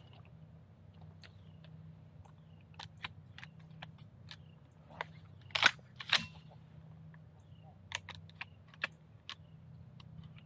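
Shotgun being loaded and handled: a run of small clicks, then two sharp clacks about half a second apart near the middle, over a low steady hum.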